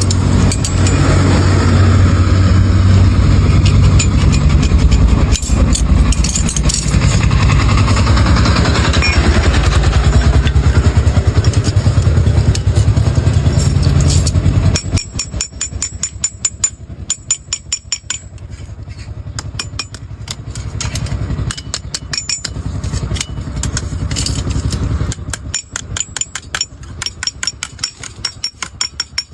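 An engine runs steadily and cuts off about halfway through. Then comes a quick, even series of light hammer taps on sheet iron, several a second.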